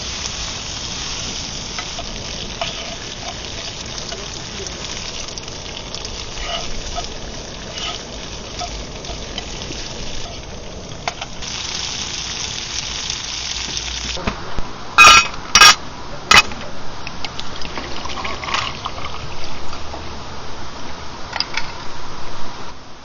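Food sizzling in a pan, a steady hiss that stops abruptly. Then three sharp knocks and some lighter clicks.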